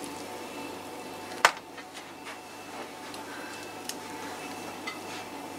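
Knife cutting a pizza on a metal baking tray: one sharp click of the blade against the tray about a second and a half in, then a couple of faint ticks, over a steady low hum.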